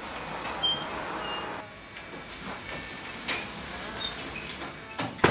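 A shop door being opened: a sharp clack followed by a few brief high ringing tones and a short rustle, then low steady room sound with a sharp knock near the end.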